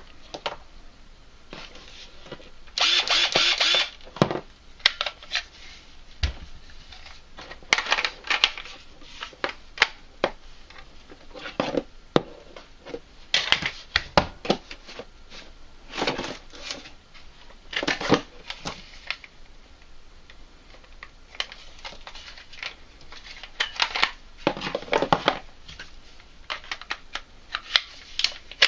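Handling noises from unpacking a cordless drill kit: a cardboard box and plastic battery pack and charger being picked up, moved and set down on a desk, giving scattered clicks, knocks and rustles. A louder rustle of about a second comes about three seconds in.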